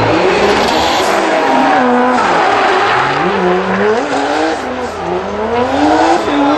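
A modified drift car's engine revving up and falling back again and again as the driver works the throttle through a slide, over the hiss of the rear tyres skidding on tarmac.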